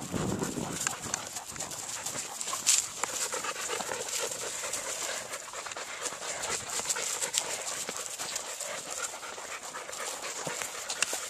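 Siberian husky panting on a walk, over irregular crunching footsteps in dry grass and leaves, with one sharper snap about three seconds in.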